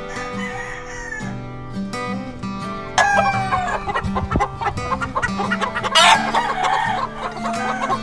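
Acoustic guitar music, then about three seconds in a gamefowl rooster crows loudly, its pitch falling. A second loud, harsh call follows around six seconds in, then repeated short clucks, with the guitar continuing underneath.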